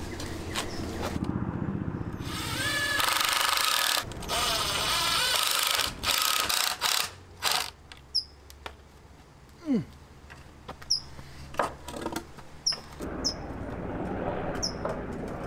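Ryobi cordless drill driving screws into 2x4 lumber in two long runs a few seconds apart, then a few short bursts, followed by scattered knocks of the wooden boards being handled.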